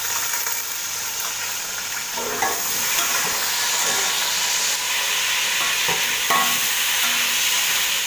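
Onions and tomatoes frying in hot oil in a metal pot, with a steady sizzle as a metal spoon stirs them. The onions are already fried golden and the tomatoes have just gone in.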